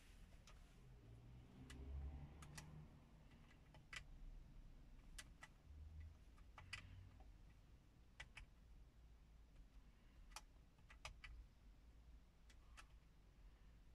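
Quiet plastic clicks of the Mercedes-Benz Audio 50 APS head unit's navigation pad and buttons being pressed, a dozen or so at an irregular pace, several in quick pairs.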